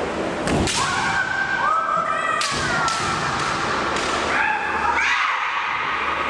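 Kendo competitors' kiai: drawn-out, high-pitched shouts, several rising in pitch, with sharp cracks of bamboo shinai strikes and stamping feet about half a second in and again about two and a half seconds in, echoing in a large hall.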